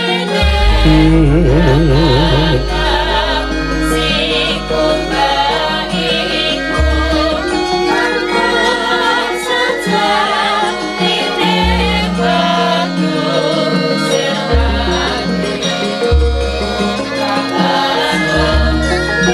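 Javanese gamelan music with female sindhen vocalists singing in a wavering, ornamented vibrato. Deep low notes sound again every few seconds.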